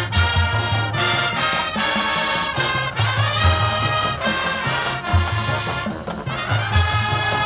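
High school marching band playing a loud, brass-heavy swing tune: held trumpet and trombone chords over low bass notes that change about once a second.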